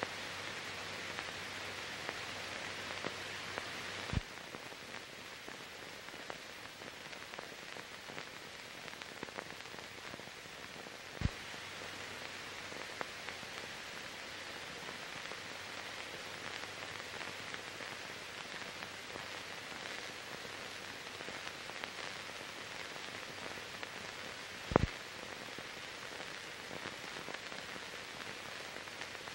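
Steady hiss with three sharp clicks, about 4, 11 and 25 seconds in: the empty sound track of a silent archive film transfer.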